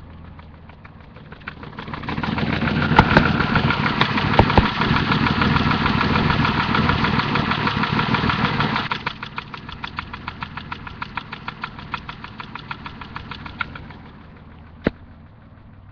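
Turbocharged BMW M30 straight-six heard from beneath the car. It idles, then is held at raised revs for about seven seconds, drops back with a rhythmic knocking, and settles to idle; this is the engine knock the owner is showing. A single sharp click comes near the end.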